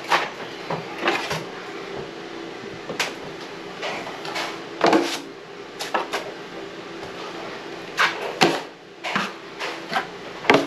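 Drywall knife scraping joint compound across a plaster ceiling and clacking against a metal mud pan: a dozen or so short, irregular strokes over a low steady hum.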